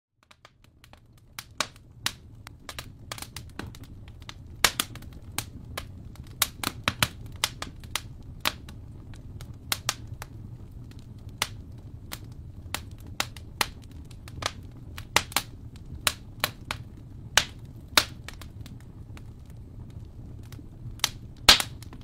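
Wood fire crackling in a fireplace: irregular sharp pops and snaps over a low steady rumble, fading in over the first second or two. One of the loudest pops comes near the end.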